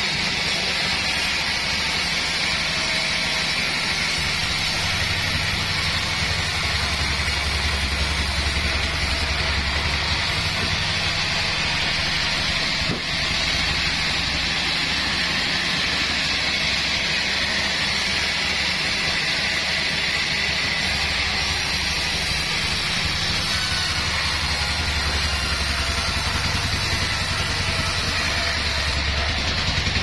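Pandan Bandsaw 36 band sawmill running and sawing a slab off a mahogany log: a steady, loud mechanical noise with a high band of blade sound and a low drone that swells twice, heaviest while the blade is in the cut.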